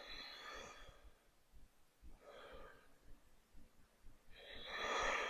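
A woman breathing audibly while holding a yoga twist: three soft breaths, the last one near the end the loudest and longest.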